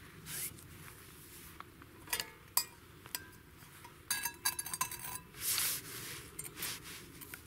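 Metal camping pot and utensil clinking against each other and being set down on a small wooden table: a couple of sharp knocks, then a short ringing metallic rattle about four seconds in, followed by a few brief rustles.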